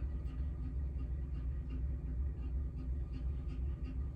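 Steady low hum of room background noise, with faint light ticks scattered through it.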